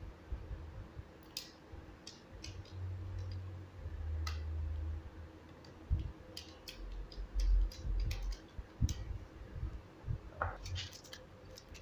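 Light clicks and taps of a small screwdriver and fingers working at a laptop's internal battery connector to disconnect the battery. Low rumbling handling bumps come about three seconds in and again around seven seconds.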